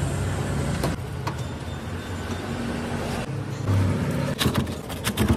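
Steady street traffic noise, with a few sharp clicks and knocks near the end.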